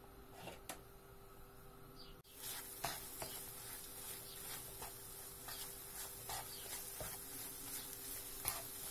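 Beaten egg frying in a non-stick pan, quiet at first; from about two seconds in it sizzles steadily while a plastic spatula chops and stirs it, with repeated short scrapes and taps against the pan.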